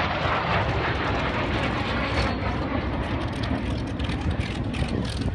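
Aircraft engine noise: a steady low rumble with a rushing sound that is strongest in the first couple of seconds and then eases off.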